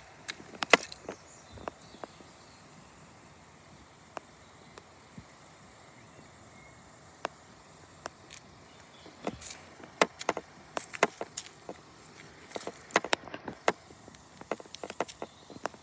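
Irregular sharp clicks and knocks over a quiet outdoor background, a few scattered at first, then two dense bunches in the second half.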